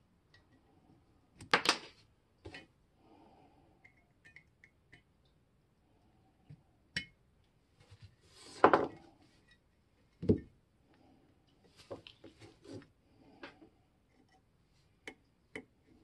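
A small screwdriver and screws clinking and tapping against a cast iron level body as its fittings are screwed back on. The knocks are scattered, with louder ones near the start, about halfway through and just after.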